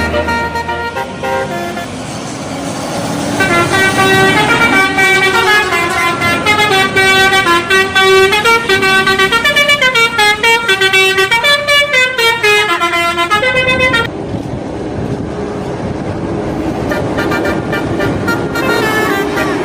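Indonesian bus telolet horn playing a quick tune of stepped notes for about ten seconds, stopping suddenly, over bus engine and road noise.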